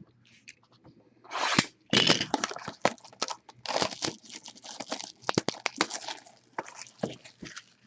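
Crinkling and tearing of plastic wrap and cardboard packaging handled by hand: a dense run of crackles and sharp clicks that starts about a second and a half in.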